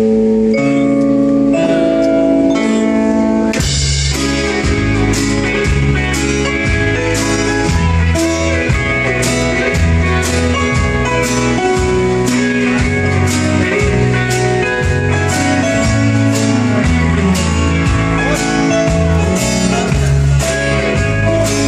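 A band plays an instrumental break of a blues-rock song, led by guitars over a bass line. A steady beat comes in with the full band about four seconds in.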